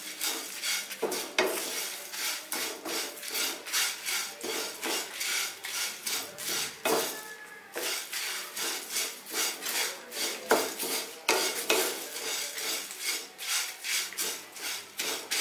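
Spatula scraping and tossing curry leaves, dried red chillies and urad dal in a dry non-stick kadai, in quick repeated strokes at about two to three a second, with a short break about seven seconds in. The leaves are being dry-roasted over low heat until crisp.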